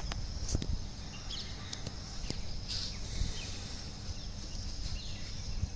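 Outdoor ambience: a steady high insect drone with a few short bird chirps, over a low rumble of wind on the microphone.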